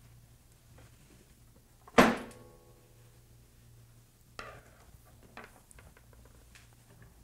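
A sharp, loud knock of a hard object with a short ringing tone that fades over about a second, about two seconds in, then a softer knock a couple of seconds later and a few faint clicks, over a steady low hum.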